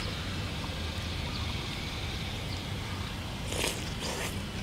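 A person slurping and eating a spoonful of rice noodles, heard as two short wet slurps near the end, over a steady low background rumble.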